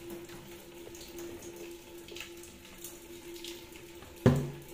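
A cut ring of PVC pipe being handled and pushed into the doorknob hole of a PVC door: a few light plastic ticks, then one sharp knock about four seconds in. A steady faint hum runs underneath.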